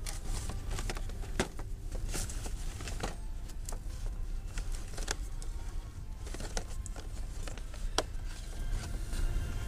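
Handling noise from a handheld camera: scattered sharp clicks and light rustling over a steady low rumble.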